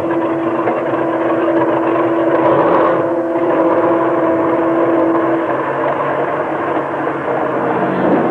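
Tank engine running and its tracks clattering as it moves, a loud steady rumble. A sustained note of background music sounds over it and stops about five seconds in.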